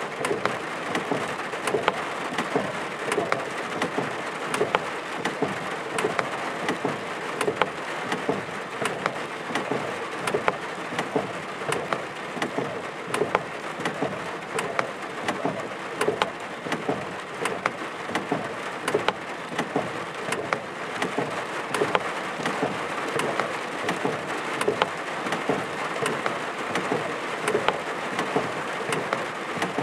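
Steady rain in a thunderstorm, with frequent sharp taps of drops striking a hard surface close by.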